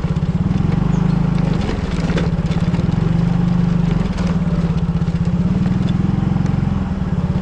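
Motor scooter engine running at low speed, heard close up from the rider's seat: a steady, fast, even pulse, easing off briefly a few times as the throttle changes.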